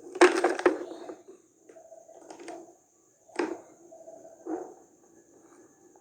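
Loud crinkling and crackling of handled packaging in a burst lasting about half a second near the start, followed by three sharp clicks spread over the next few seconds.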